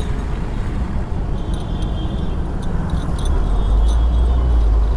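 Motorcycle running with its dB killer just pulled out of the exhaust, under a dense low rumble of engine and wind noise that swells about four seconds in.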